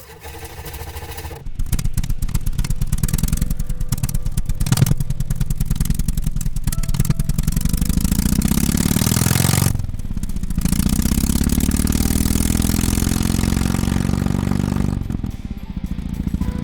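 Synthesized motorcycle engine: a starts quietly, then revs up through the gears in rising sweeps, dropping back briefly about ten seconds in as if shifting, and settling back to a lower idle near the end.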